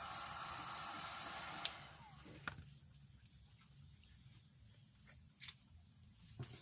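Heat gun blowing with a steady hiss, switched off with a click a little under two seconds in. A few sharp light clicks or knocks follow.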